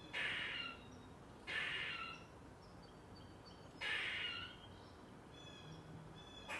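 Eastern gray squirrel calling in alarm: three drawn-out, raspy calls about half a second long, near the start, about a second and a half in, and about four seconds in.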